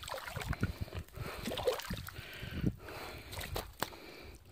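Water sloshing and splashing as a cast net is gathered and pulled out of shallow water by hand, with irregular splashes and dripping and a few sharp splashes in the second half.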